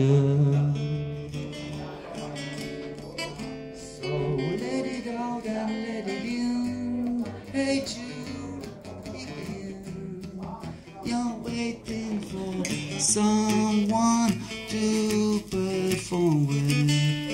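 Acoustic guitar strummed, playing the chords of a song between sung lines.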